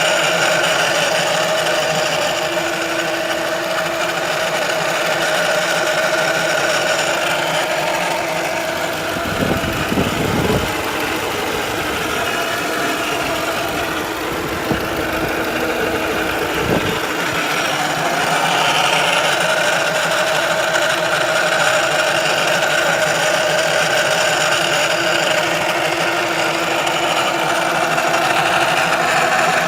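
Ford Focus running at idle with a steady whining hum made of several held pitches, the abnormal noise put down to the transmission control module (TCM). A few low rumbling knocks come about a third to halfway in.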